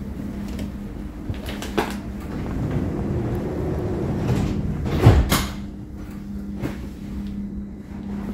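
Cologne Stadtbahn tram heard from inside, slowing to a stop: a steady drive hum and rumble with rattles and knocks, the loudest a heavy clunk about five seconds in.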